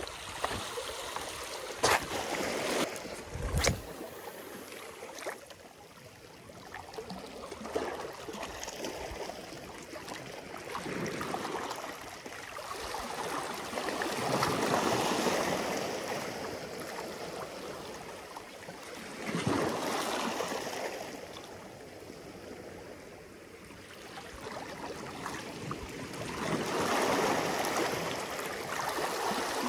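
Small sea waves washing and lapping over shoreline rocks, swelling and fading every few seconds. A couple of sharp clacks near the start, stones knocking underfoot.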